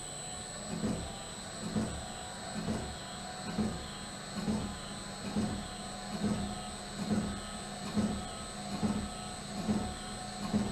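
Shock dyno cycling a Fox monotube rear shock with an internal floating piston at 10 inches per second, with its rebound adjuster fully open. It makes a rhythmic surge with each stroke, about one every 0.9 s, over a steady machine hum.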